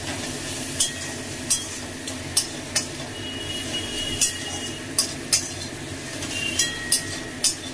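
Spice paste sizzling in oil in an aluminium kadai as it is fried down, while a spatula stirs and scrapes it, knocking against the pan about ten times at irregular intervals.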